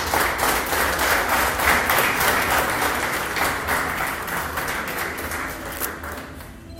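Crowd applauding, a dense patter of many hands clapping that fades away near the end.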